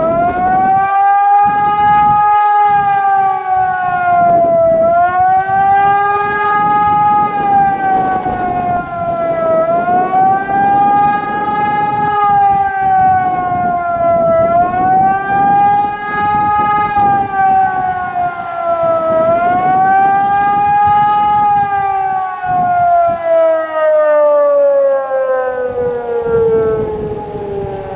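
ECN 1200 electronic high-performance sirens sounding the public warning signal of a test alarm: a loud wail rising and falling about every five seconds. About three quarters of the way through, the tone stops rising and falls in one long slide.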